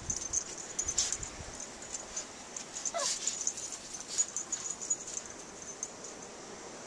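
A pug gives a short whimper that falls in pitch about three seconds in, amid faint scattered crunching and clicking.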